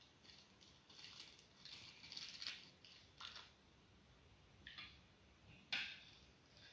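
Near silence broken by faint, short rustles and light taps of handling in the kitchen, the loudest a little before the end.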